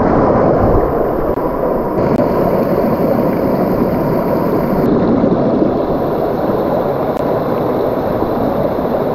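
Small stream cascading over rocks: a steady rush and splash of water heard close up.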